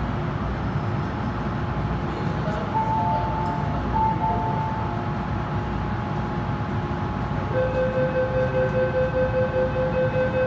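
MTR M-Train standing at an underground platform, with the steady hum of its equipment and the station around it. About three seconds in, a two-note electronic chime sounds. From about seven and a half seconds in, a rapid, pulsing electronic beep starts.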